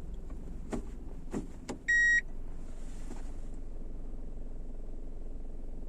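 Kia Rio 4 idling in Drive with its automatic transmission engaged: a steady low rumble from the vibration that appears in D and R, a fault the owner cannot pin down. A few light clicks in the first two seconds, then a short loud electronic beep from the car about two seconds in.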